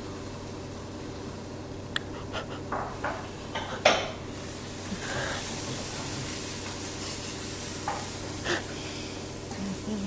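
A run of light knocks and clicks, the sharpest about four seconds in. After it a steady hiss sets in over a low hum, and two more knocks come near the end.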